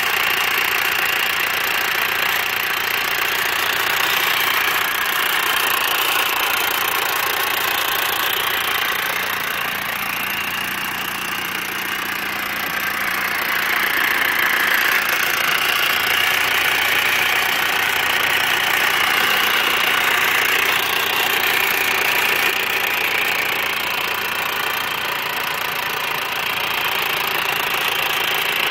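Eaton M45 supercharger on an R53 MINI Cooper S engine running with a loud clattering rattle. An abnormally loud clatter like this is the warning sign of a supercharger about to fail.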